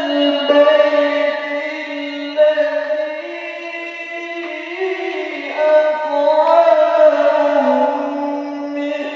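A man reciting the Quran in the melodic tilawah style through a microphone and PA, holding long high notes and moving between them with ornamented turns.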